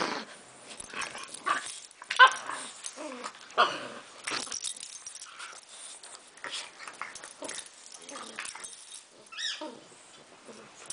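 English bulldog puppy and chocolate Labrador puppy play-wrestling, with irregular short yips and whimpers over scuffling. The loudest burst comes about two seconds in, and a high whine rises and falls near the end.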